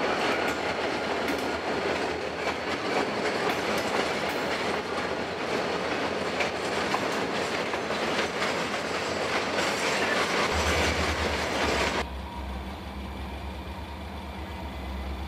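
Freight cars rolling across a steel girder bridge: a steady rumble and clatter of wheels on rail, with a faint high squeal under it. About twelve seconds in it cuts off abruptly to a quieter low steady hum.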